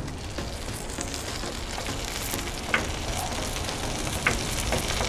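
Ribeye steak sizzling on a hot Blackstone flat-top griddle, a steady crackling hiss broken by a few sharp pops.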